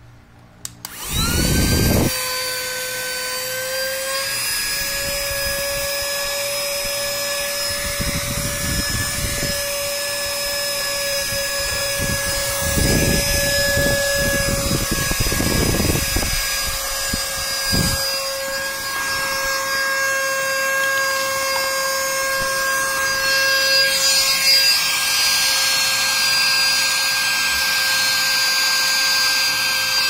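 Handheld rechargeable mini vacuum cleaner switched on about a second in, its small motor spinning up to a steady high whine that holds throughout. A few low rumbling stretches come and go as the nozzle works along the floor edge.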